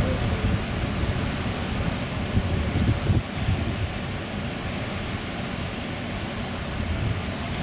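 Steady rush of wind and sea with low wind buffeting on the microphone, a little louder in the first three seconds.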